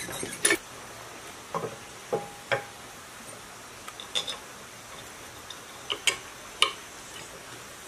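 Scattered sharp metallic clicks and clinks of steel tools and engine parts, as a hub is fitted onto a small diesel engine's cast flywheel and its bolts are worked with a spanner. A couple of the clinks ring briefly, and the sharpest comes near the end.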